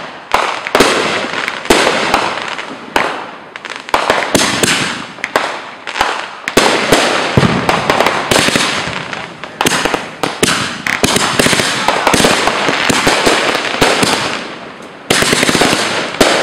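Aerial fireworks going off close by: a rapid string of sharp bangs, roughly one a second, each trailing off into crackling. A louder, denser burst comes about fifteen seconds in.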